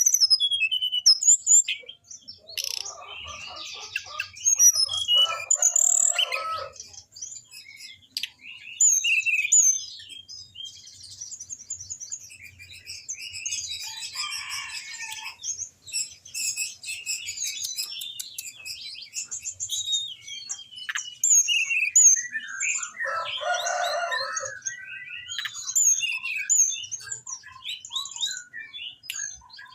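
Anis binbin songbird singing a continuous run of quick, high chirps and trills. Three denser, lower-pitched phrases come about three to six seconds in, around fourteen seconds and around twenty-three seconds.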